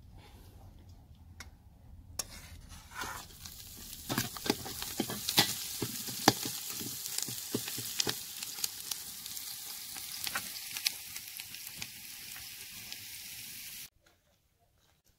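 Sliced onions sizzling in hot oil in a large aluminium pot, with a metal ladle scraping and clicking against the pot as they are stirred. The sizzle builds over the first few seconds and cuts off abruptly near the end.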